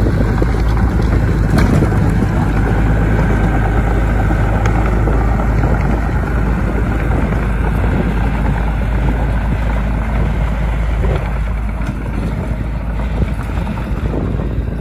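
Heavy diesel engine of a bulldozer running steadily, a continuous low drone that drops a little in level near the end.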